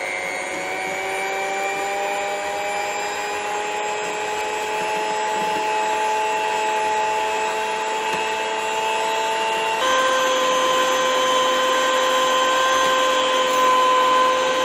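Electric hand mixer running steadily with a motor whine, its twin wire beaters creaming melted butter and powdered sugar in a glass bowl. The pitch creeps up slowly, then steps up to a higher speed about ten seconds in.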